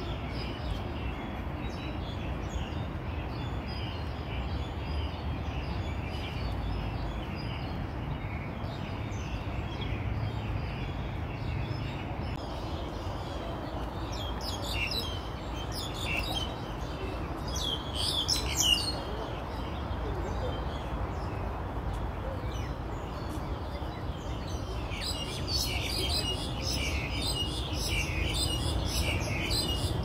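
Birds chirping in the trees in quick clusters of high chirps, about halfway through and again near the end, over a steady low background hum.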